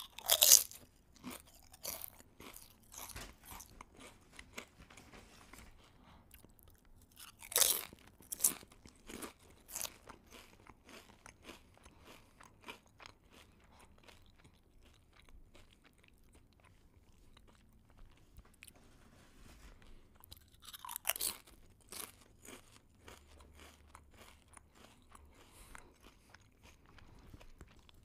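A person biting and chewing crunchy food. There are three loud crunching bites, about a second in, around eight seconds and around twenty-one seconds, with many smaller crunches of chewing between them.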